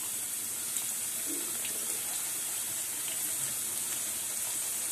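Chicken wontons deep-frying in a pan of hot oil: a steady sizzling hiss with a few faint pops.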